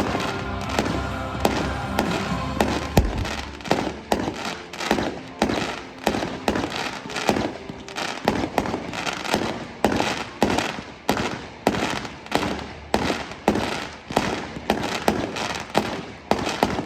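Fireworks finale: a rapid barrage of bangs and bursts, several a second, with music playing underneath.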